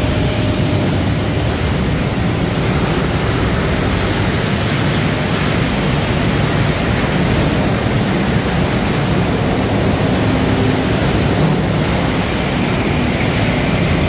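Steady, loud roar of a biochar plant's drying section running: the gas burner and blower firing the rotary drum dryer on surplus gas from the carbonization furnace, with a low machine hum underneath.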